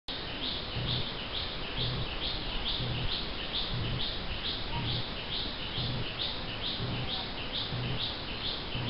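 A bird calling one short, slightly rising note over and over, about twice a second, with steady regularity.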